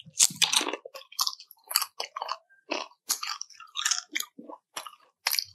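A person chewing crispy fried chicken skin close to the microphone, with a quick, uneven run of crackly crunches.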